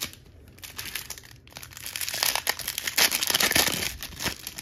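A trading card pack's wrapper being torn open and crinkled. A few short crackles come first, then a dense crackle builds about a second and a half in and is loudest in the second half.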